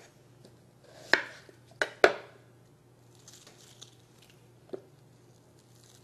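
A knife cutting a small onion on a wooden cutting board: three sharp knocks between one and two seconds in, then a lighter tap later. Faint rustling of onion skin being peeled in between.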